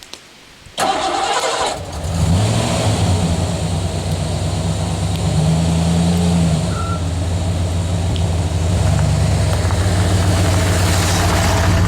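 Freshly installed engine of a 1987 Ford Bronco being cranked by the starter for about a second, then catching and running at a steady idle.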